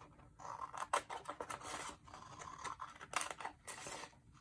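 Scissors cutting through a sheet of paper in a run of uneven snips, with sharp snaps of the blades about a second in and about three seconds in. The cutting dies down near the end.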